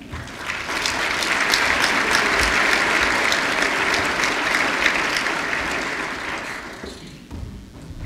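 Audience applauding: the clapping swells up over about the first second, holds steady, then dies away near the end.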